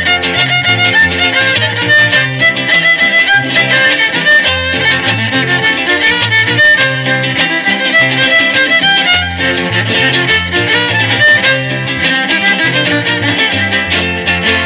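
Instrumental break of a Huasteca string trio: a violin plays the melody over steady strummed jarana and a stepping bass line from the huapanguera.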